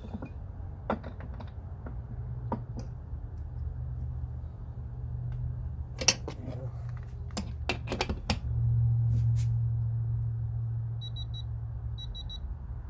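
Scattered sharp clicks and clatter of hand tools over a steady low hum, which grows louder for a few seconds in the second half. Near the end come a few quick runs of short high electronic beeps, from a digital torque readout.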